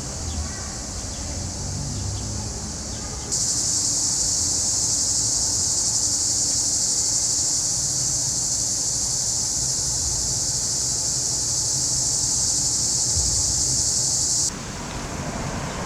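Cicadas buzzing in a shrill, steady chorus. A loud chorus starts abruptly about three seconds in and cuts off suddenly near the end, over a fainter buzz that continues throughout. A low hum of traffic runs underneath.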